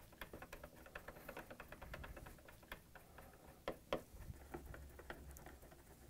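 Faint rapid ticking and small clicks of 1/4-inch screws being turned in by hand with a nut driver to fasten refrigerator hinge covers, with two louder clicks about four seconds in.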